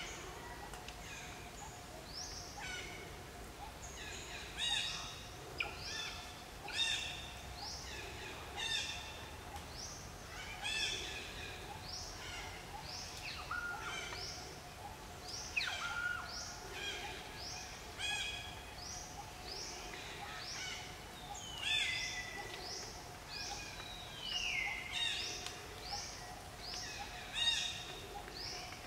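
Forest birds calling over and over: short, high whistled notes that sweep downward, often several overlapping, about one a second, over a faint steady hum.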